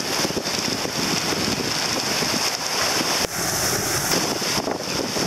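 Strong wind buffeting the microphone over rough, choppy sea with waves and spray rushing past a sailboat's hull; the noise briefly drops about three seconds in.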